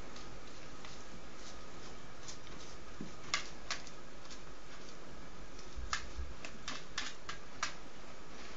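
Kittens' paws and claws tapping and scrabbling on a plastic tray, a scatter of light sharp clicks over a steady hiss, most of them in the second half.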